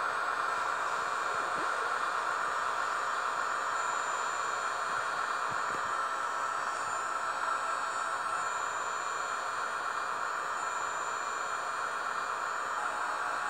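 Rivarossi HO-scale E402 electric locomotive model with a sound decoder, its small onboard speaker playing a steady hissing whir of electric-locomotive running sound.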